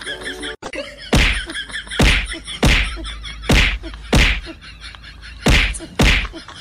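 A run of seven sharp whacks, starting about a second in and coming roughly every two-thirds of a second to a second.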